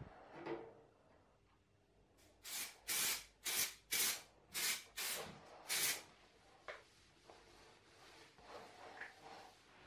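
Aerosol can of anti-spatter spray hissing in about seven short bursts over a few seconds as it is sprayed onto a steel welding-table top, followed by faint rubbing as the coating is wiped across the metal with a gloved hand.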